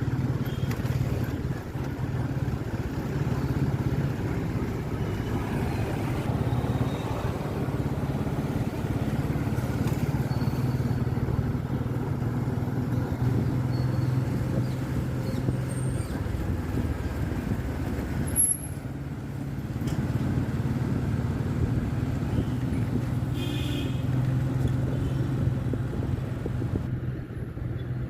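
A motor vehicle engine running steadily with road noise. There is a short dip in the sound about eighteen seconds in.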